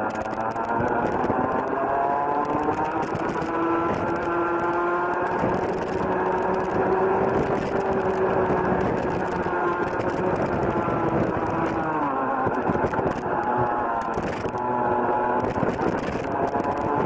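Rotax Junior Max 125cc single-cylinder two-stroke kart engine, heard onboard at speed. Its pitch rises as the kart accelerates down the straight, drops off about twelve seconds in as it slows for a corner, and climbs again near the end.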